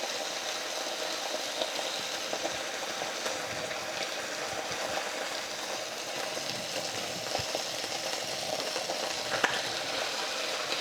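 Pork chop searing in hot oil in a skillet: a steady sizzle with scattered small pops and crackles.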